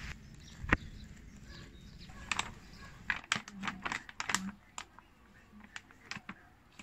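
Plastic packaging of breaded chicken fillets crinkling and crackling in a hand in quick irregular clicks, after one sharp knock under a second in.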